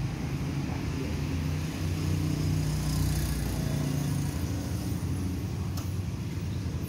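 Steady low hum of a motor vehicle engine running, with no meowing.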